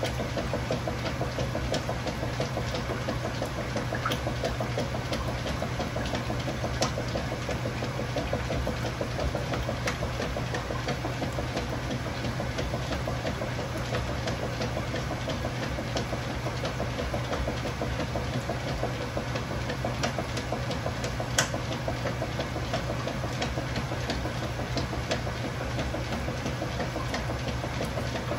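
Kenmore Ultra Fabric Care top-load washing machine running, with a steady motor hum under a fast, even pulsing and scattered light clicks.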